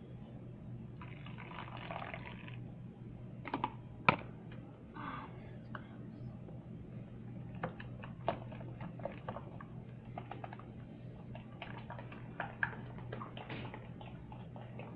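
Slime being mixed by hand in a container: scattered small clicks and taps, with a short pouring sound of borax activator about a second in and a sharper tap about four seconds in.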